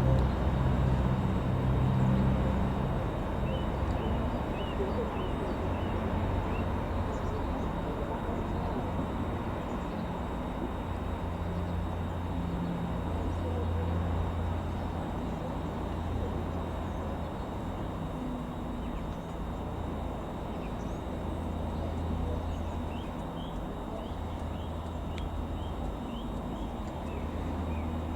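Steady low outdoor rumble that swells and fades, with a small bird chirping in quick series of short rising notes, once early on and again near the end.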